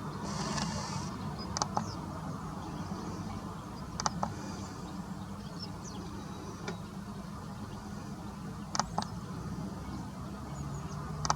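Garden ambience: faint, short, high bird chirps over a steady low rumble, broken by a few sharp clicks that come singly or in quick pairs, about a second and a half in, around four seconds, near nine seconds and at the very end.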